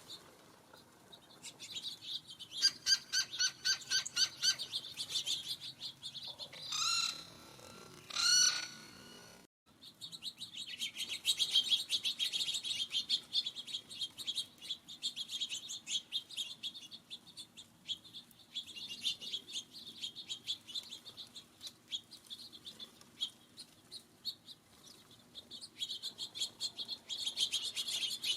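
Small birds chirping and twittering in quick, busy runs, with two louder, clearer calls at about seven and eight and a half seconds. The sound cuts out briefly just under ten seconds in, then the chirping resumes.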